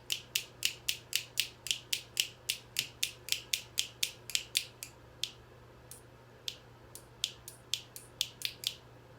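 Hairdryer's plastic slide switch being clicked over and over through its positions: a quick run of sharp clicks, about four a second, that breaks off for a second or so past the middle and then resumes more unevenly.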